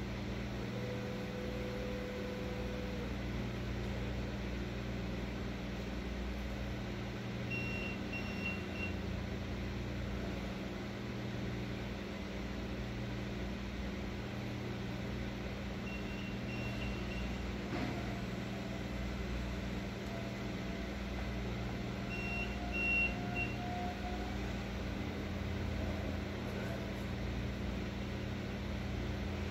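STILL electric reach truck working in an aisle, with a steady electric motor hum throughout. Three short runs of high beeps come from the truck's warning beeper about 8, 16 and 22 seconds in. Between about 18 and 24 seconds a whine slowly rises in pitch.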